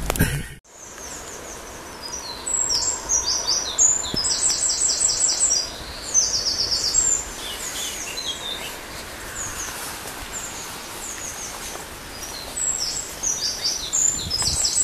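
Small songbirds singing in quick runs of high, repeated chirping notes, over a steady outdoor hiss. The sound drops out briefly about half a second in.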